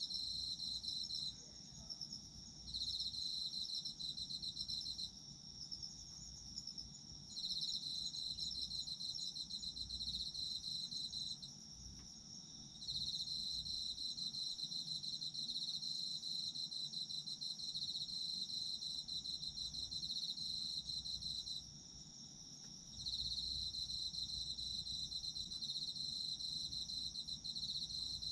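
Autumn insects calling. One trills in bouts of a few seconds, each broken by a pause of about a second, over a steady, higher ringing from other insects.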